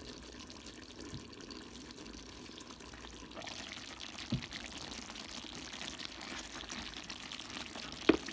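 Coconut-milk adobo sauce bubbling steadily in a wide pan, louder from about three seconds in as the lid comes off. A light knock near the middle and a sharp knock just before the end, the wooden spoon striking the pan as the stew is stirred.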